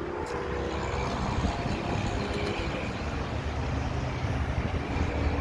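Steady low rumbling vehicle noise with a few faint held tones.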